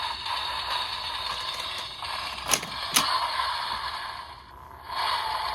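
Plastic toy belt buckle and driver being handled, a steady rustle with two sharp plastic clicks about half a second apart near the middle.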